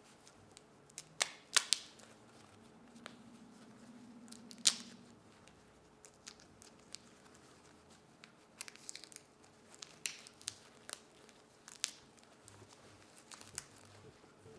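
Hand-peeling of salt-roasted chestnuts: the shells crack and tear off in scattered sharp cracks and light crackling. The loudest cracks come in the first five seconds.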